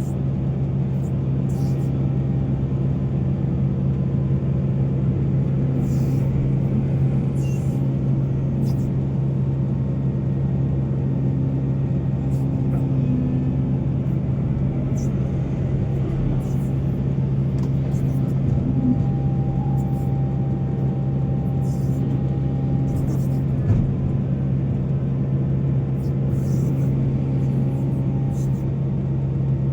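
Heavy diesel engine of mining machinery running at a steady, unchanging note, with a single brief knock about three-quarters of the way through.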